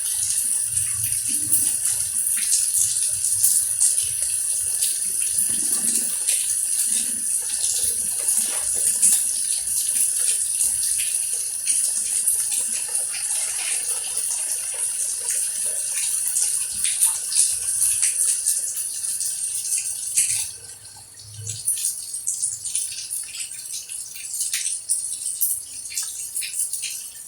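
Steady loud hiss of falling or running water, thick with small patters and splashes. About twenty seconds in, the hiss drops off abruptly and only scattered splashes and ticks remain.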